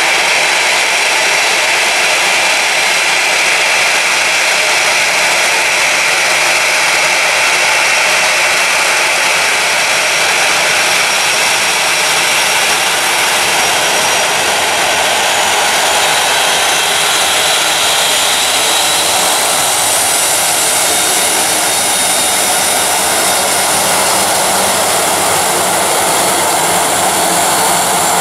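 Boeing 737 twin jet engines running at taxi power: a loud, steady rush with a thin high whine that comes in over the second half.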